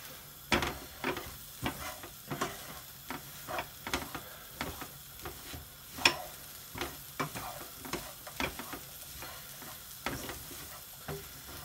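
Wooden spoon stirring and scraping chopped onions, peppers and spices around a frying pan, in irregular strokes about one or two a second, over a soft sizzle as the spices toast in the vegetables' juices.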